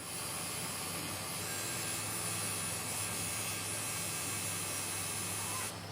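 A workshop machine running steadily, an even noise with a high, thin whine over it, which cuts off suddenly near the end.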